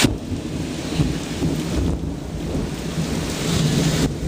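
Thunder rumbling low and long after a nearby lightning flash, swelling and ebbing, loud enough that it sounds 'like a nuke', over steady rain.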